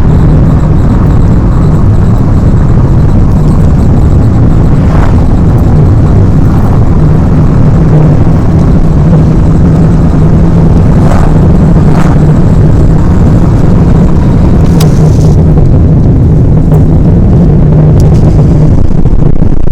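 Mercedes-Benz A-Class on the move: a loud, steady rumble of road and engine noise, with a handful of short squeaks from the car scattered through it.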